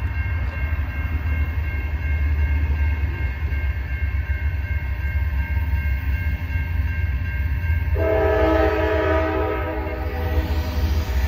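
A railroad crossing warning bell rings steadily over a low rumble as the gates come down. About eight seconds in, the lead locomotive of a CSX coal train, AC4400CW #587, starts blowing its horn, a chord of several tones held to the end, for the grade crossing.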